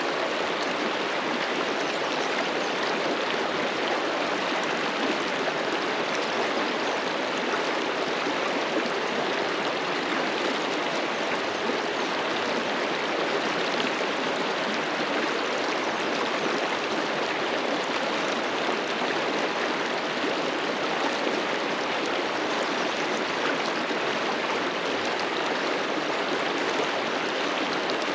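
River water rushing steadily over rocks, a constant full rushing sound that neither rises nor falls.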